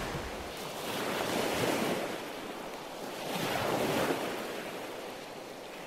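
Small sea waves washing up onto a coarse sand shore and drawing back. The wash swells twice and falls away between.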